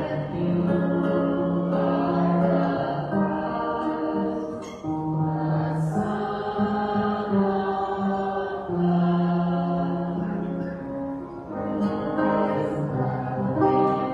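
A slow hymn sung with long held notes over musical accompaniment.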